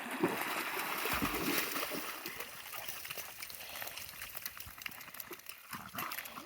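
Dog splashing through river water, loudest in the first couple of seconds and then easing off.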